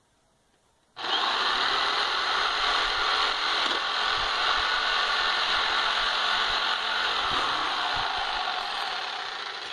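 Power tool running steadily as it cuts the rod for a homemade motor's shaft to length. It starts abruptly about a second in and tails off near the end.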